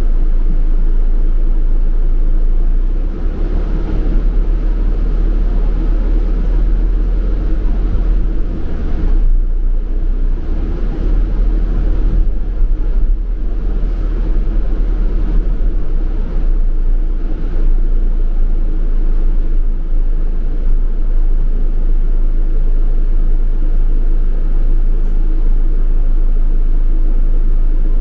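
London double-decker bus running, heard from inside the bus: a steady low rumble from the engine and cabin.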